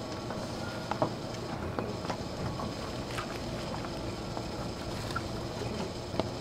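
Inside a Sotetsu Series 20000 electric train car standing at a station: a steady hum and hiss from the car's air conditioning and auxiliary equipment, with a few faint knocks, and no motor whine of the train moving off.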